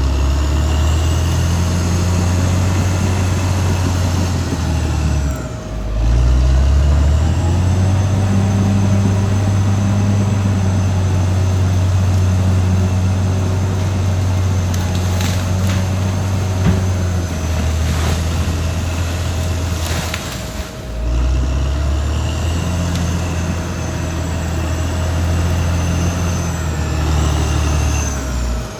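Caterpillar D6R XL bulldozer's diesel engine running under load, with a steady whine over it. The engine note sags and picks back up twice, about five seconds in and again about twenty seconds in. A few sharp cracks or knocks come in the middle.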